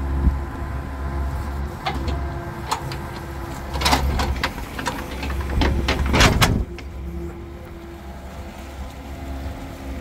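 Excavator engine running under hydraulic load while its bucket digs wet mud in a drainage trench. Sharp clanks and scrapes of the bucket come in a cluster from about four seconds in, loudest a little after six seconds, after which the engine eases off.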